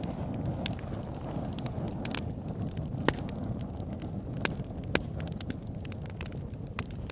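Open cooking fire burning with a steady low rumble and constant small crackles, broken by several sharp pops, the loudest about three seconds in and two more around four and a half and five seconds.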